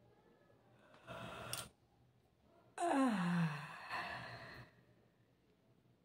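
A woman yawning: a short breath in about a second in, then a loud yawn with her voice sliding down in pitch, fading into a breath out.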